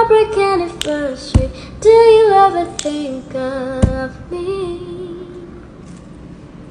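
A young girl singing alone without accompaniment, holding long notes that slide between pitches and fading toward the end. Two sharp low thumps cut in, about a second and a half in and again near four seconds.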